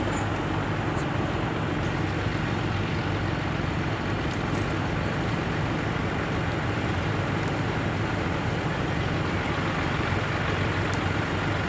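Pulling tractor's engine running steadily at idle, a constant low hum that neither rises nor falls, ahead of its pull.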